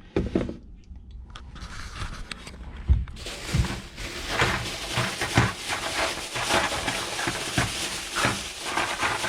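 Plastic packaging of crimp terminals crinkling and rustling as it is handled and opened, a dense crackle from about three seconds in, after a few low knocks.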